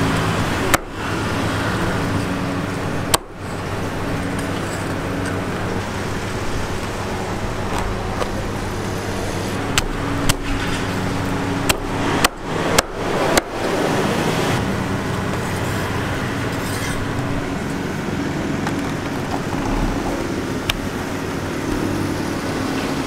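Cleaver chopping grilled chicken on a wooden board: a few sharp knocks, mostly bunched about ten to thirteen seconds in, over a steady low hum of traffic noise.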